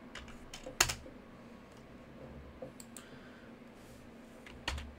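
A handful of sharp, separate clicks from a computer mouse and keyboard, the loudest about a second in and another near the end.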